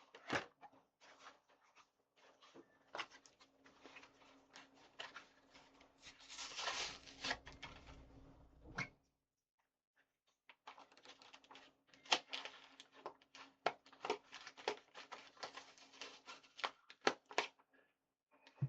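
Stiff plastic blister packaging of a Pokémon card checklane blister pack crackling and clicking as it is pried and pulled open by hand. It goes in irregular sharp clicks with a denser crinkling stretch, a short pause about halfway, then a quick run of clicks.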